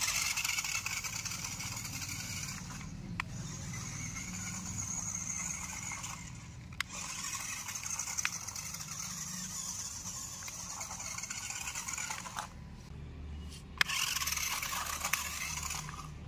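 Toy RC rock crawler's small electric drive motor and gears whining as it drives over dirt. It runs in stretches and stops briefly twice, with a few sharp clicks.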